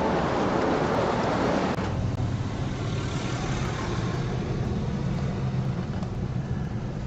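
Vehicle noise: a broad rush of wind and road noise for the first two seconds or so, then a steady low rumble.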